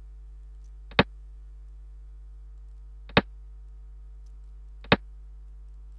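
Three short sharp clicks, one with each piece moved on an on-screen xiangqi board, about two seconds apart, over a low steady electrical hum.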